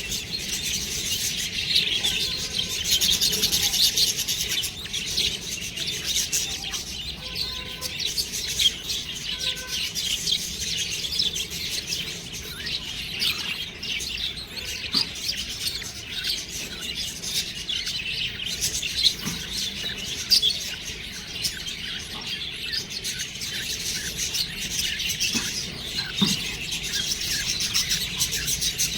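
Budgerigars chirping and chattering: a steady stream of many overlapping, high-pitched chirps.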